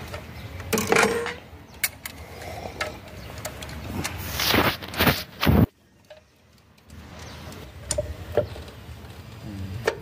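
A wrench and other metal hand tools working bolts on an engine's cylinder head and timing-chain sprocket: scattered metallic clicks and knocks, with a stretch of noisy scraping about four to five and a half seconds in. A brief drop to near silence follows.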